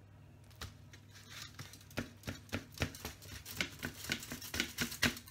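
A knife cutting into an apple tart and tapping against the dish beneath it. A few sharp clicks come at first, then a quick, irregular run of about four taps a second from about two seconds in.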